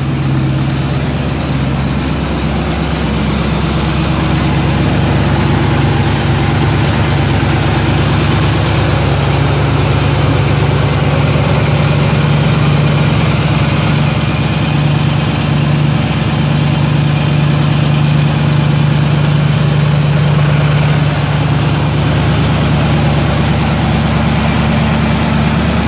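Carbureted V8 of an older GMC pickup idling steadily, just started on a newly installed MSD multi-spark ignition box with fresh plugs gapped to 0.060 inch.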